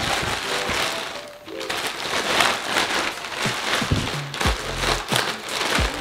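Clear plastic packaging bag crinkling and rustling as a hair dryer brush is pulled out of it, over background music.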